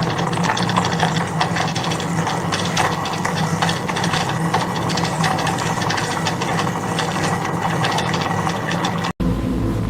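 Industrial factory machinery running: a steady hum under dense, rapid rattling and clicking. Just after nine seconds it cuts abruptly to a different machine with a deeper, steadier hum.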